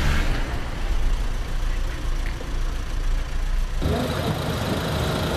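A vehicle engine idling close by under street noise, with a heavy low rumble. The sound changes abruptly about two-thirds of the way through, where the footage cuts.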